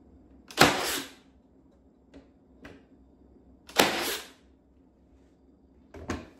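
Cordless brad nailer firing twice, about three seconds apart, driving nails through wooden trim into a cabinet door; each shot is a sharp crack with a short tail of about half a second. Near the end the nailer is set down on the counter with a knock.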